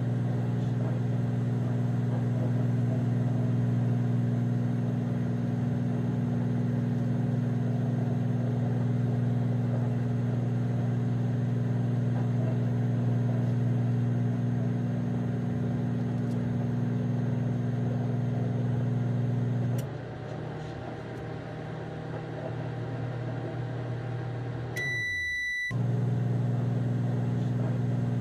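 Microwave oven running with a steady low hum. About 20 s in the hum stops and a quieter sound winds down, then a single high beep sounds about 25 s in, the microwave's done signal, after which the steady hum starts again.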